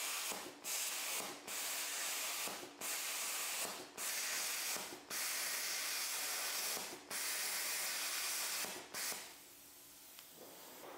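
BestArc BTC500XP plasma cutter cutting expanded metal in mesh mode: a steady hiss of the plasma arc that breaks off briefly seven times, about every one to two seconds, as the cut crosses the mesh. Even in mesh mode the arc does not carry continuously across the expanded metal. The cutting stops about nine seconds in.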